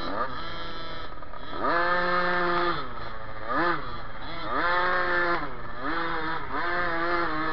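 Small off-road motorcycle engine being ridden hard, its revs repeatedly climbing, holding high for about a second, then dropping off with the throttle.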